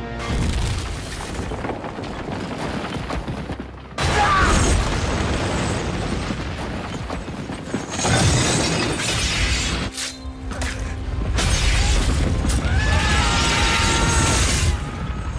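Film sound mix: a giant iron scythe blade on a chain dropped down a wall of ice, with ice shattering and heavy crashes over dramatic orchestral music. The loudest crashes come suddenly about four and eight seconds in.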